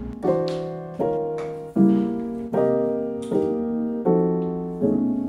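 Background music: piano chords struck about once every three-quarters of a second, each one fading away.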